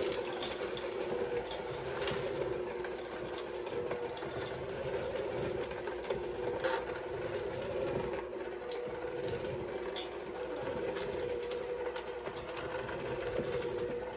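Electric mixer running steadily as it beats chocolate chips and chopped pecans into thick cookie dough, with scattered light clicks and one sharper click a little past halfway.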